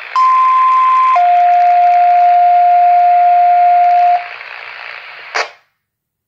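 Two-tone sequential page received over a scanner radio: a higher tone held for about a second, then a lower tone held for about three seconds, over steady radio hiss. The hiss carries on briefly and ends in a short squelch burst, after which the radio goes silent.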